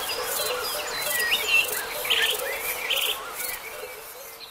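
Morning chorus of songbirds chirping and trilling over a steady pulsing chirp of crickets or other insects, the whole soundscape fading out over the last second or so.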